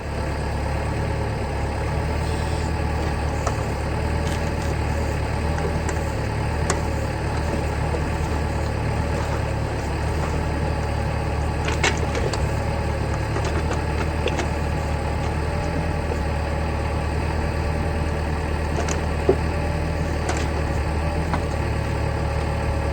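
Engine running steadily at one constant speed, with a few faint clicks.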